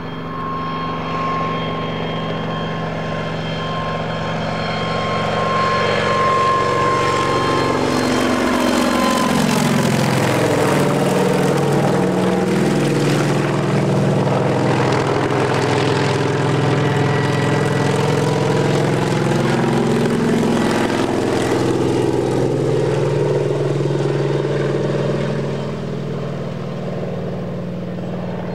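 Kamov Ka-26 helicopter, its twin nine-cylinder radial piston engines and coaxial rotors running, making a pass. Its engine note falls in pitch about nine seconds in as it goes by, shifts again about twenty seconds in, and it is loudest through the middle before easing off near the end.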